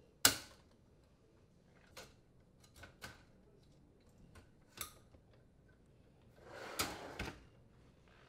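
Dishwasher upper rack being refitted. Its plastic front tabs snap into the track with a sharp click just after the start, followed by a few lighter clicks and rattles of the wire rack. Near the end the rack rolls in along its rails with a short rumble and two knocks.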